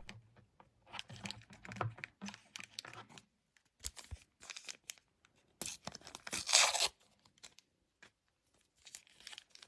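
Trading card pack wrapper being torn open, with crinkling of the wrapper and the cards being handled; the longest, loudest tear comes about six seconds in.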